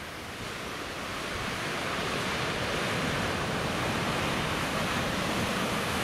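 Ocean surf: a large wave rolling in and breaking into heavy spray, its rushing noise swelling over the first couple of seconds and then holding steady.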